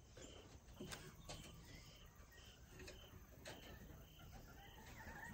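Near silence: a quiet outdoor background with faint short high chirps repeating about twice a second, and a few faint ticks.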